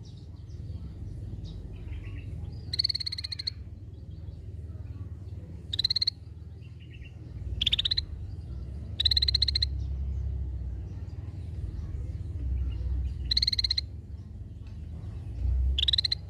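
Scaly-breasted bulbul (cucak bersisik) giving short, buzzy, rapidly pulsed high calls, six of them at uneven gaps, each under a second, with a low rumble underneath.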